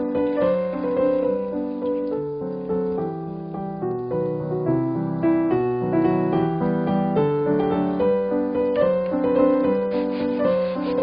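Background piano music, a gentle melody over chords.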